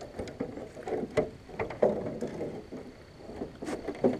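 Irregular knocks and clatter against the boat as a freshly caught largemouth bass is swung aboard and handled, the fish and line bumping the hull.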